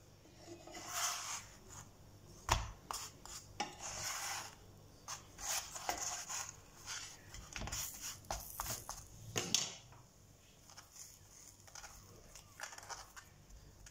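Gözleme flatbreads being turned over by hand in a granite-coated frying pan, then a fork spreading butter on them. Irregular light knocks and clicks against the pan with short rubbing and scraping, busier in the first ten seconds and quieter after.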